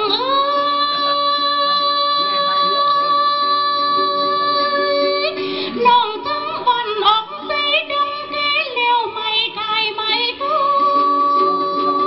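A woman singing a Tày folk song in a high voice over a plucked đàn tính (tính lute). She slides into a long held note for about five seconds, then sings a run of quick ornamented turns, and settles on another held note near the end.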